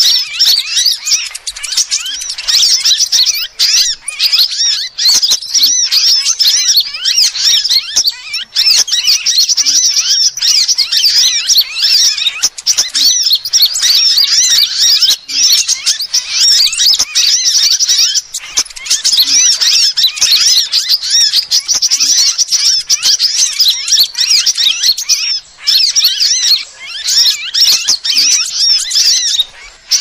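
Dense, continuous high-pitched chirping and twittering of sunbirds from a bird-lure recording, many quick calls overlapping with only brief pauses.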